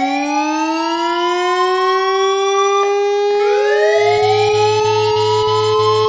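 Electronic siren alarm for a made-up emergency alert: several siren tones wind up in pitch and hold. A second siren layer winds up about three seconds in, and a low pulsing buzz joins about four seconds in.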